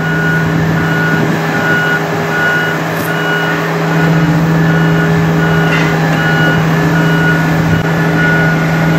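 Manitowoc crawler crane's diesel engine running steadily as the crane crawls forward carrying a heavy girder, with a travel alarm beeping about once a second.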